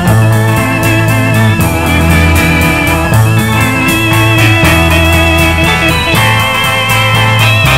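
Band instrumental with an electric combo organ to the fore, over arpeggiated electric guitar, bass and drums. The chords change about every second and a half.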